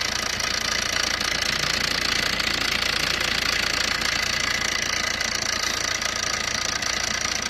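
Fiat Punto engine idling with its accessory belt removed, giving a steady fast knocking rattle from the timing chain. The chain is loose and shakes against the sprockets, which the mechanic diagnoses as a worn timing chain fault.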